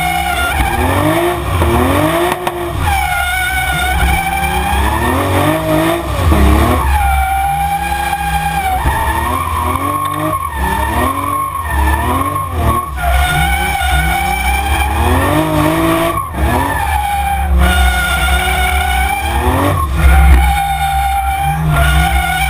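Toyota Supra drift car's 2JZ straight-six engine revving up and down over and over as it slides through corners, with tyres skidding and squealing.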